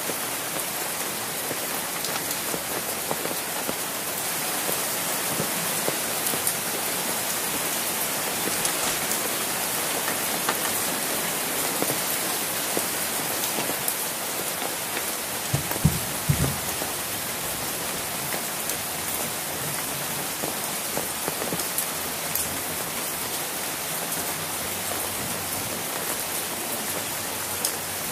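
Steady rain, with many small drops ticking on an umbrella held overhead. About halfway through, a quick cluster of a few loud knocks.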